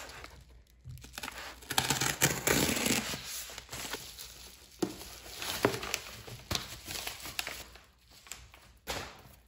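A box cutter slicing open a kraft paper bubble mailer, with a loud tearing rasp about two seconds in. Then paper and plastic crinkling, with a few sharp knocks, as shrink-wrapped albums are slid out onto a desk.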